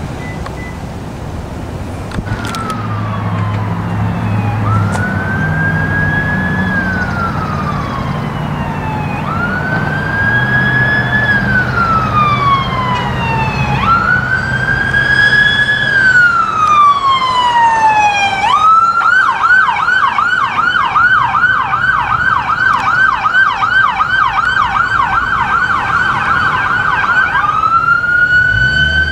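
Electronic siren on a San Jose police SUV responding code 3. It sounds in wail, a slow rise and fall every few seconds, switches to a fast yelp of about three cycles a second two-thirds of the way through, then goes back to wail near the end. A low vehicle engine rumble runs under the first half.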